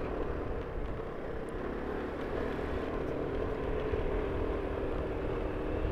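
A vehicle engine running at a steady pitch on an uphill climb, with a low rumble of road and wind noise beneath it.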